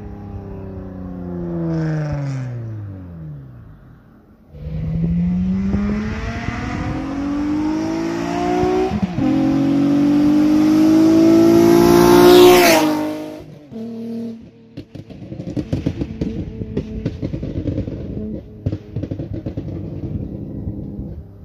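Straight-piped 2009 Honda Accord V6 coupe's 3.5-litre V6 with the exhaust cutout open, running at full throttle in a fly-by. At first the engine note falls away as the car pulls off. About four seconds in the engine note climbs through the revs, with a brief break for a gear change, and peaks loudest as the car passes about twelve seconds in. The pitch then drops sharply, followed by fainter irregular crackling.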